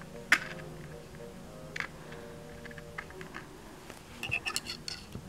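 Small sharp clicks and ticks of thin 20-gauge craft wire being handled and bent against a plastic pen barrel, a few single clicks and then a short cluster near the end, over faint background music.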